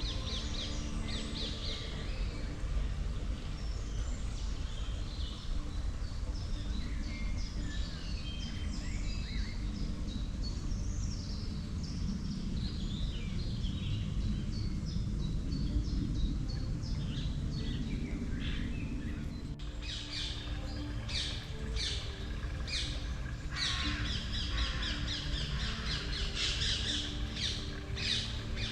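Woodland birdsong: several birds singing and chirping with short trills and quick calls. About two-thirds of the way through it changes abruptly to louder, rapidly repeated sharp calls, over a steady low rumble.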